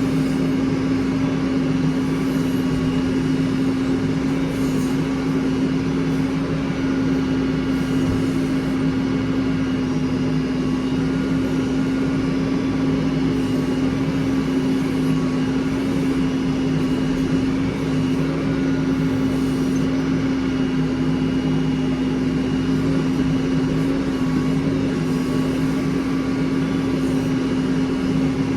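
Heavy diesel engine running at a steady speed, with a strong steady hum and no change in pitch.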